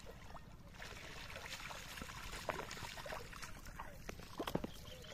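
Water trickling and splashing as a wet cast net is hauled out of shallow water, with a patter of small drips and splashes.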